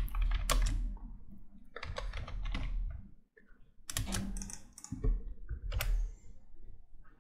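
Computer keyboard typing in several short bursts of keystrokes, with a few separate clicks near the end as the command is entered.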